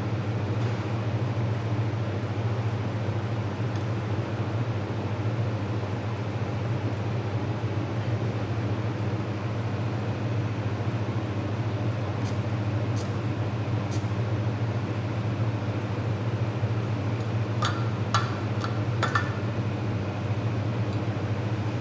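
Steady hum of a fiber laser welding machine running, with a few short, sharp clicks in the second half.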